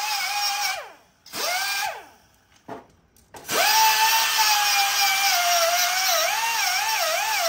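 Cut-off wheel tool grinding through metal on a dirt bike. Its high whine winds down about a second in, runs again briefly, dies away, then spins back up around three and a half seconds in and keeps cutting, the pitch wavering as the wheel bites.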